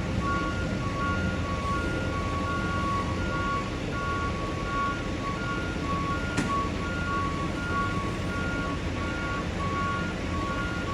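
Electronic two-tone warning signal alternating between a lower and a higher pitch, about two cycles a second, over steady vehicle and street rumble, with a single click about six seconds in.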